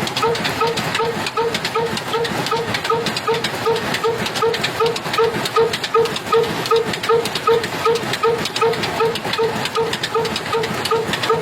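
Old black stationary diesel engine running at a slow, steady beat of about three strokes a second with a clatter of sharp clicks, driving a flour mill under load.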